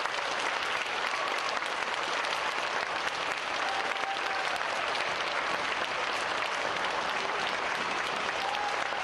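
Audience applause: a large crowd of children and adults clapping steadily in a gymnasium.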